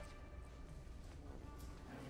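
Quiet bar ambience: a steady low hum with a faint murmur of patrons' voices.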